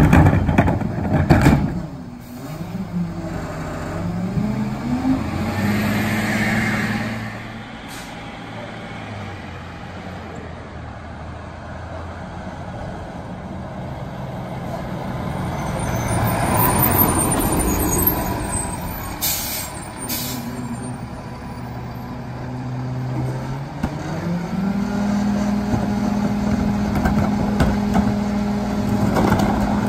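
Freightliner M2 rear-loader garbage truck: a cart knocks against the hopper at the start, then the diesel engine revs up and settles back as the packer runs. The truck drives up, its air brakes give two short hisses, and near the end the engine rises to a steady high idle for the next pack cycle.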